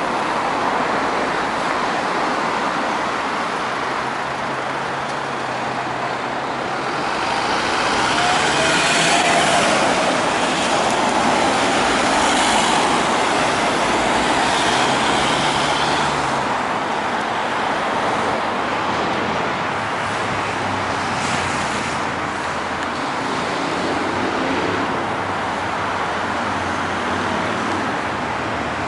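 Road traffic passing a street crossing: a steady flow of cars and larger vehicles, swelling louder in the first half as vehicles go by, with a low engine drone under it for a while.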